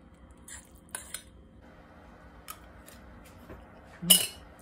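A few light clicks and scrapes of a utensil against a stainless pot of macaroni and cheese, then one short, loud noise near the end.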